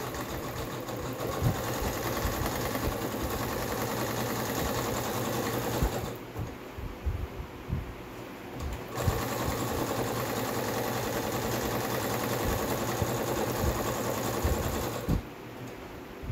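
Electric domestic sewing machine running a zigzag stitch along a cut seam edge to neaten it against ravelling. It stops for about three seconds midway, then runs again and stops shortly before the end.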